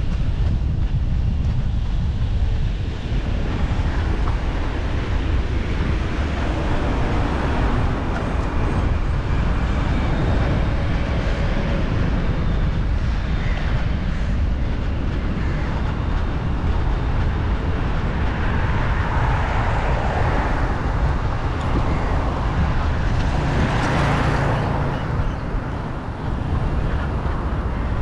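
Wind noise on the microphone under steady road traffic. Vehicles pass on the adjacent road, and the loudest one goes by about three-quarters of the way through.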